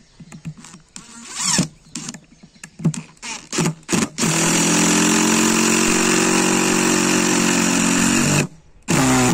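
DeWalt cordless impact driver hammering a 3-inch fine-thread screw into very hard wood with no pilot hole, running steadily for about four seconds and driving it in fully, then a second short burst near the end. Before it, a few light knocks and clicks as the screw is set by hand.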